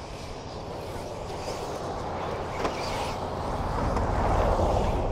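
Radio-controlled racing trucks running on a dirt track, getting louder as one passes close about four seconds in.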